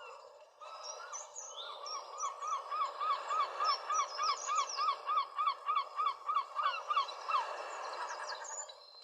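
A bird calling in a fast run of repeated, identical notes, about four a second for five seconds, with fainter high chirps from other birds, over a steady background hiss.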